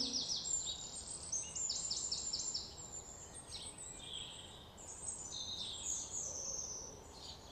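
Birds singing and chirping in the trees: quick runs of short, high notes repeated several times over, against a faint steady background of outdoor noise.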